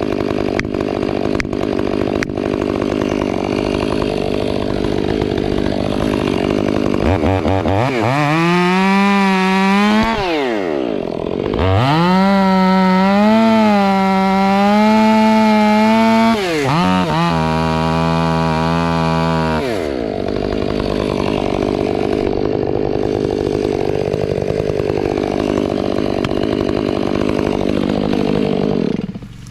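Two-stroke chainsaw running: it idles, is revved up to a high wavering pitch twice for several seconds each, drops back to a steady run, and cuts off just before the end.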